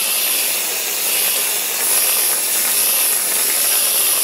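Aerosol can of light whipped cream spraying cream out in a continuous loud hiss.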